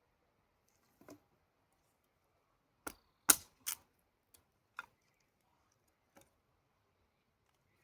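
Separate sharp pops and cracks from a burning wood campfire, about six in all, with a quick cluster of the loudest ones around three seconds in.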